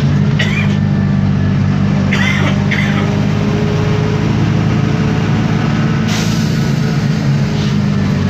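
Isobus City 1200 bus under way, its MAN D0836 diesel engine and ZF automatic gearbox giving a steady low drone, with brief rattles from loose parts about two seconds in.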